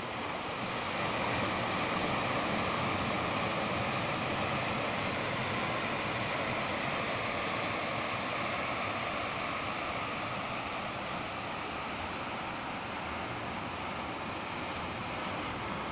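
Surf breaking and washing over shoreline rocks at a river mouth: a steady rushing wash of waves that grows a little louder about a second in.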